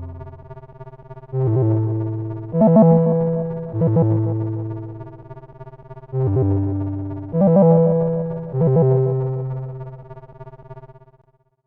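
A stock Android 10 (LineageOS 17.1) ringtone or alarm tone playing: synthesized electric-piano-like notes, each struck and then decaying. They come as two phrases of three notes about a second apart, with a pause between the phrases, and die away near the end.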